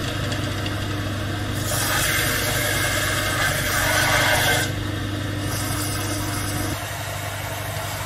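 Electric bench belt sander running with a steady hum. About two seconds in, a wooden lure blank is pressed onto the belt and a harsher sanding rasp rises over the motor for about three seconds, then returns more lightly a little later.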